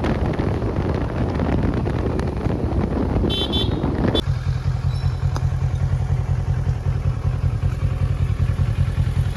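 Motorcycle running on the road, its engine under a rush of wind and road noise, with a brief horn toot about three seconds in. About four seconds in the sound changes abruptly to a steadier low engine beat.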